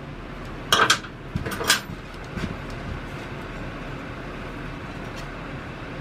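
Metal parts and hand tools being handled on a garden tractor: a few sharp clanks and rattles about a second in, then a steady low background hum.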